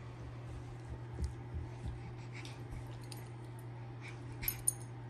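Irish Setters playing on carpet: soft scuffling and light thumps, with two sharp clicks near the end, over a steady low hum.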